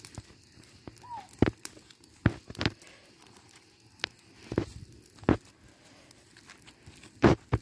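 Small campfire of twigs and dry leaves crackling, with sharp snaps and pops at irregular intervals.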